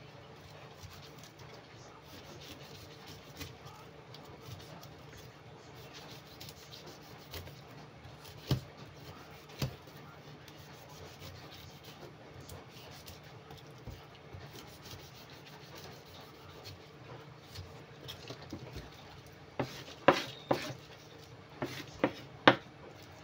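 Large kitchen knife slicing and scraping through a pineapple's tough rind on a wooden cutting board, a quiet rasping. Sharp knocks against the board come twice about eight and nine seconds in, and several more come close together near the end.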